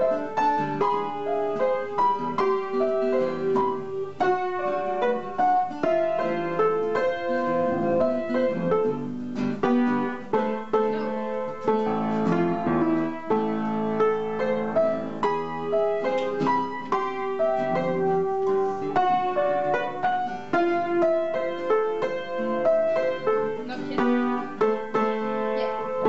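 Upright piano played four-hands: a continuous run of struck notes and chords.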